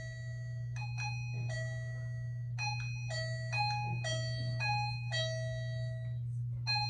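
KERUI wireless motion-sensor door chime in music mode, playing an electronic chime tune through its small speaker. The single bell-like notes mostly come about half a second apart, with a couple of short pauses, over a steady low hum.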